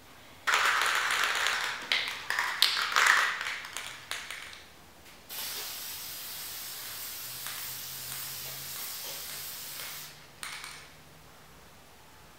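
Aerosol can of clear acrylic sealer. It starts with about four seconds of loud, irregular rattling and handling noise, then gives a steady spray hiss for about five seconds, ending with one brief extra spurt.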